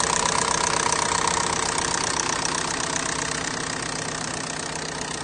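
Big-turbo FSI engine idling with a rapid, steady ticking knock over its running sound: an abnormal noise it has made since it was built, which the owner cannot yet identify. It grows gradually quieter over the last few seconds.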